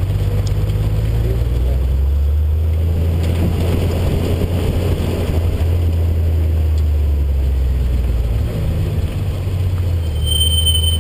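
Porsche 911's flat-six engine running at low revs while the car rolls slowly, heard from outside the cabin with wind and road noise. Near the end, a high steady squeal sets in, the brakes squealing as the car slows.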